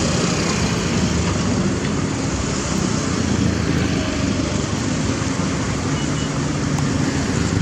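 Caterpillar 320D hydraulic excavator's diesel engine running steadily under working load, with a rumbling low end and a broad noisy hiss over it.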